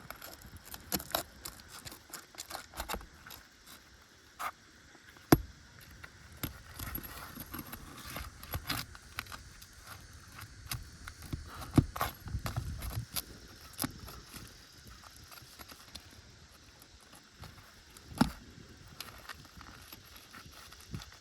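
Hand tool working roofing nails out of brittle asphalt shingles to free one: scattered sharp metal clicks and taps with scraping, and two louder knocks about five and twelve seconds in.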